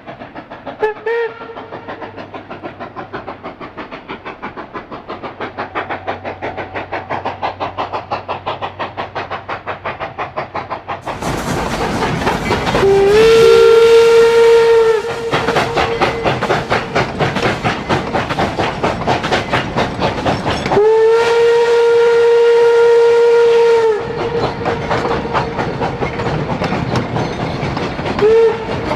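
Steam locomotive running with a steady rhythmic beat, louder from about eleven seconds in. Its whistle gives a short toot about a second in, two long blasts of two to three seconds each in the middle, and another short toot near the end.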